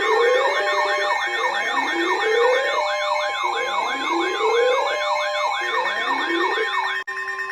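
Several electronic siren tones layered at once: a fast yelp, a higher warble and a slow rising whoop that repeats every one and a half to two seconds, all over steady alarm tones. The sirens cut off about seven seconds in, leaving a steady lower tone.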